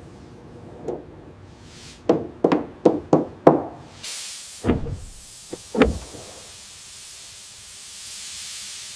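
A quick run of five or six knocks, then a steady hiss with two deep thuds.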